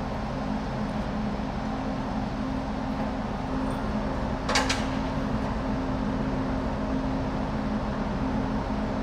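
Steady low hum of a large moored Japan Coast Guard survey ship's machinery running, with a few even drone tones over a wash of noise. A sharp double knock cuts through about halfway.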